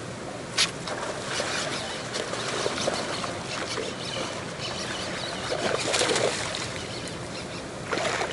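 Steady rush of water from a current running over rocks, with a sharp click about half a second in and irregular splashing and sloshing, loudest around six seconds in and again near the end.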